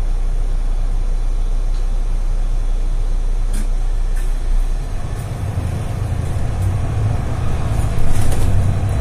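Mercedes-Benz Citaro Facelift city bus heard from inside the cabin: its diesel engine idles at a standstill, then pulls harder as the bus moves off, about five seconds in, with a low rumble building.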